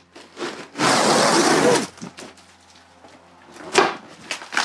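Old ceiling lining being torn down by hand from a wooden plank ceiling: a loud tearing rustle lasting about a second, then two sharp knocks near the end.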